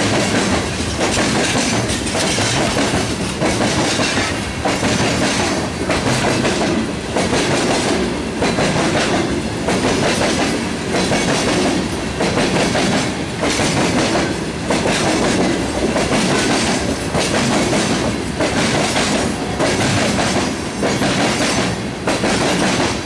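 Freight train cars rolling past, their wheels clacking over rail joints in a steady rhythm about once a second over a continuous rumble and rattle of the cars.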